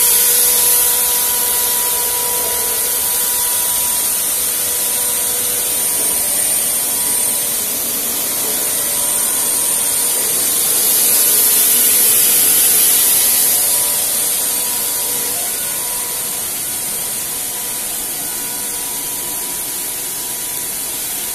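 Circular knitting machine running: a steady high hiss with a faint steady hum under it, swelling a little about halfway through and easing slightly afterwards.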